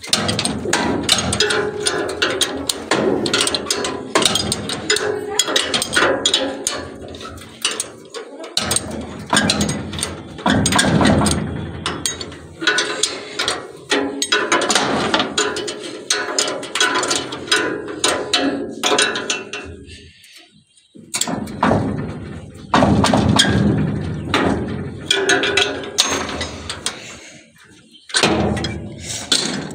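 Ratchet and socket wrenches clicking and metal tools clinking as the nuts holding a thresher drum's worn blades are undone, in quick irregular runs with a short lull about two-thirds through.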